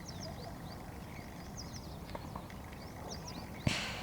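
Birds chirping in short high phrases that repeat about every second and a half, over a low background rumble. A short, loud noisy knock comes near the end.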